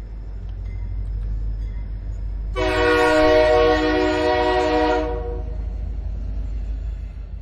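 Train running with a steady low rumble. About two and a half seconds in, a train horn sounds one long multi-tone blast for about two and a half seconds, then cuts off.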